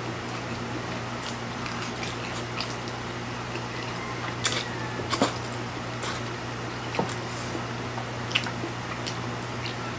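Two people slurping and chewing Samyang cheese-flavour spicy instant noodles, wet mouth sounds with a few sharper smacks in the second half, over a steady low hum.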